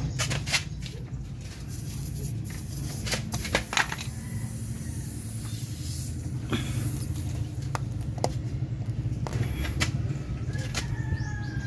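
A steady low rumble runs throughout, with scattered sharp clicks and knocks of a tubeless tyre plug tool being worked into the tyre.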